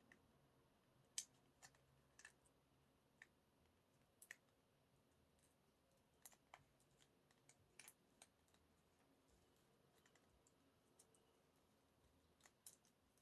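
Faint, irregular clicks and taps of fingers handling a small album box while trying to open it; otherwise near silence.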